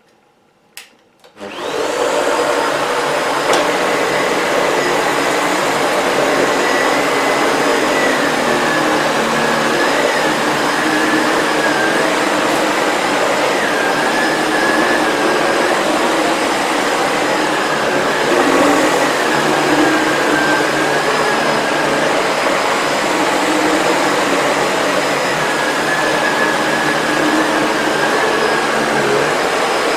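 Sebo Felix upright vacuum cleaner switched on with a click about a second in, its motor spinning up and then running steadily with a high whine. Its powerhead's brush roll, set to the highest height, turns as the vacuum is pushed back and forth over a shag rug, the tone wavering slightly with each stroke.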